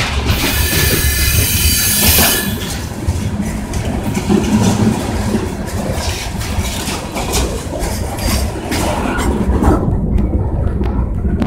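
Open-top hopper cars of a Norfolk Southern freight train rolling past close by: a steady low rumble with repeated clicking of wheels over the rail joints, and a high wheel squeal for the first two seconds or so.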